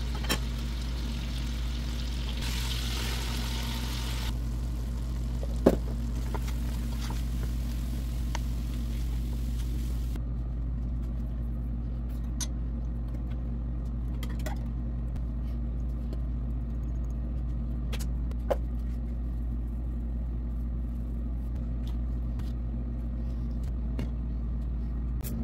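A steady low hum, with a few sharp metal clinks and knocks from handling a stainless steel pot and its lid. The loudest knock comes about six seconds in. A brief hiss comes about three seconds in.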